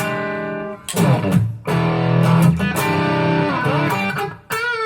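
Electric guitar played through a Zoom G5n multi-effects unit: several chords strummed and left to ring, struck again about a second in, near two seconds and near the end.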